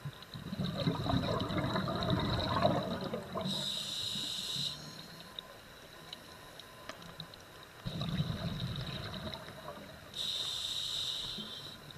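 Scuba diver breathing underwater through a regulator, twice: a spell of bubbling exhaust from the regulator, then the short hiss of the demand valve as air is drawn in.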